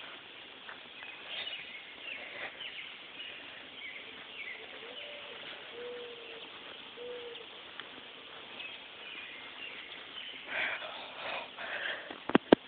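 Outdoor ambience of birds chirping in short calls, with a few low drawn-out tones in the middle and a couple of sharp clicks near the end.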